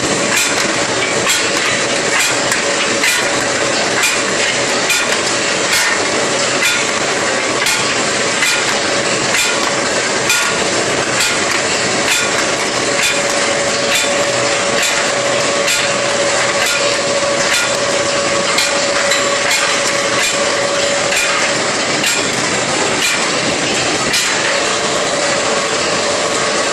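Skew rolling machine line running: steady loud machine noise with a constant hum and a regular metallic knock about once a second.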